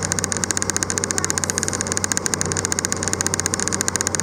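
Locomotive engine running steadily, heard from aboard the moving train, with a fast, even pulsing.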